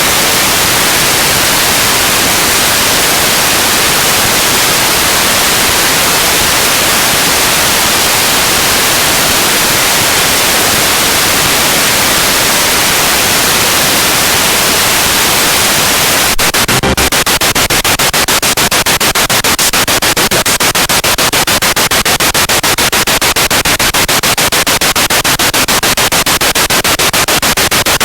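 Spirit box radio scanning through stations: loud, steady white-noise static. About two-thirds of the way through it turns into a fast, regular chopping, several pulses a second, as the sweep steps from station to station.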